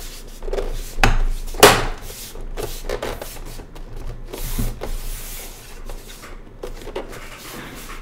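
Plastic back cover of a Lenovo IdeaCentre all-in-one PC being pinched back onto its frame by hand: a series of clicks and snaps as the retaining clips seat, two sharp ones about a second in and smaller ones after, with hands rubbing and scraping along the plastic.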